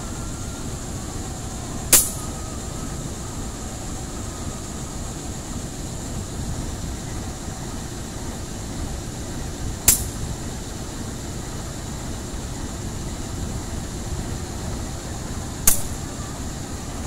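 Diesel locomotive idling with a steady low rumble, with three short sharp hissing bursts spread through it, about 2, 10 and 16 seconds in.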